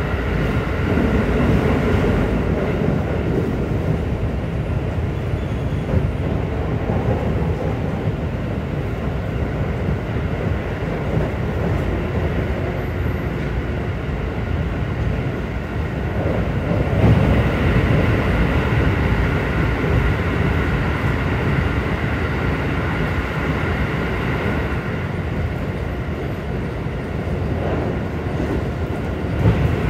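Keikyu New 1000 series electric train running at speed: steady rumble of wheels on track, with several steady high tones above it from its Siemens IGBT VVVF inverter traction equipment. The rumble swells about halfway through, and a sharp knock comes near the end.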